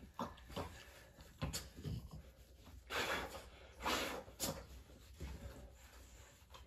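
French Bulldog snorting and panting in short noisy bursts while greeting a person, the two loudest about three and four seconds in, with a few short clicks and scuffles between them.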